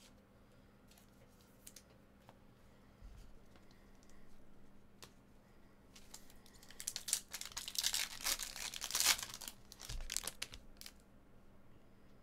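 Foil trading-card pack being torn open and its wrapper crinkled: a crackling burst of about three to four seconds in the second half, after a few faint taps.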